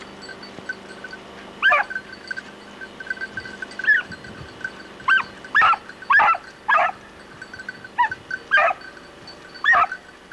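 Beagle giving tongue out of sight in the brush, about nine short yelping bays that each drop in pitch, some alone and some in quick runs: a hunting hound's cry while working game to flush it.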